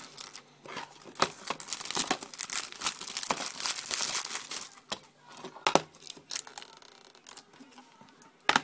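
Clear plastic shrink wrap being torn and peeled off a DVD case, crinkling and crackling for the first five seconds or so, followed by scattered sharp clicks and taps as the plastic case is handled on the desk.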